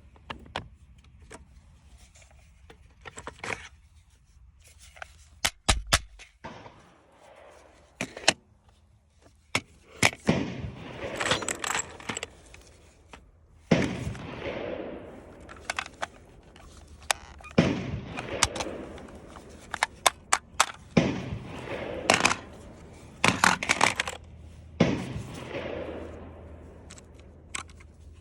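Sharp metallic clicks and clacks of rifle and magazine handling, then from about ten seconds in a string of loud gunshots every two to four seconds, each with a ringing tail.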